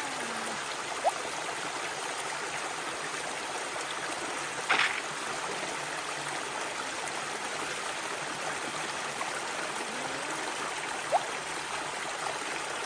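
Small waterfall splashing and trickling steadily over rocks. Two brief high chirps, about a second in and near the end, and one short, sharp burst of noise about a third of the way in stand out above it.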